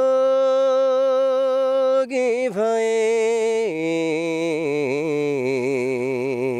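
A man singing a Nepali song unaccompanied, holding one long steady high note for about two seconds, then stepping down twice, the last lower note held with a wavering vibrato.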